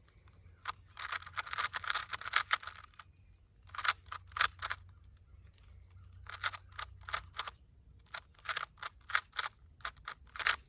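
Rubik's Cube being twisted by hand: quick runs of plastic clicks and rattles in several bursts, the densest a couple of seconds in.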